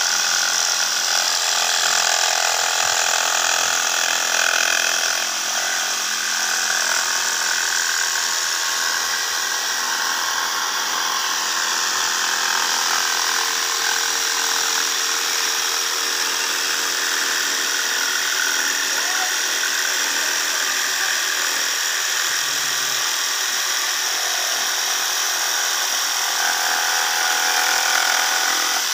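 Electric jigsaw running steadily while its reciprocating blade cuts through a wooden panel board (plywood or blockboard, 'triplek/triblock').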